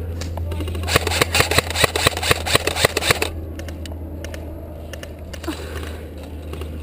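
Airsoft gun firing a rapid full-auto burst, about nine shots a second, starting about a second in and stopping a little after three seconds, over a steady low hum.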